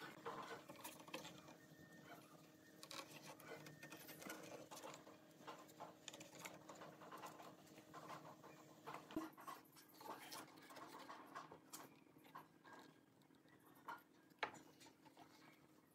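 Faint, scattered taps, clicks and rustles of hands pressing a kerf-cut wooden strip against the edge of a round wooden tabletop and handling a plastic glue bottle, over a faint steady hum.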